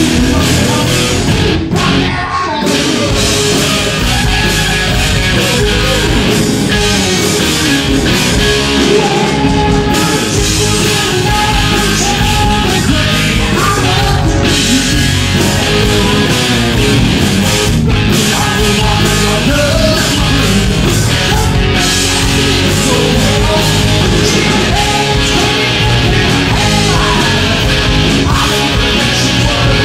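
Rock band playing live: electric guitars, bass and drums, with a man singing.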